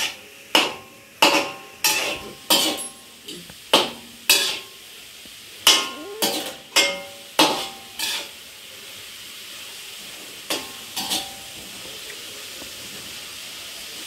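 Metal ladle stirring and clanking against a metal kadhai, with sharp ringing knocks about every half-second for the first eight seconds and a few more near the end. Underneath, onion, carrot and capsicum sizzle steadily in hot oil.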